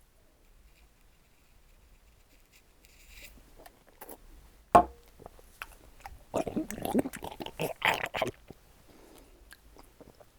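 Handling noise: a single sharp knock about five seconds in, then a couple of seconds of scraping and clattering.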